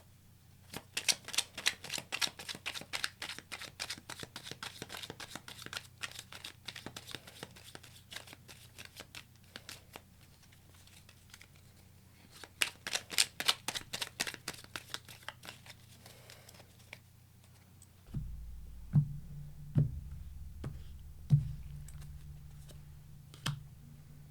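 Tarot cards being shuffled by hand: two quick runs of rapid, papery clicks a few seconds apart. Near the end a low hum comes in and a few separate thumps sound over it.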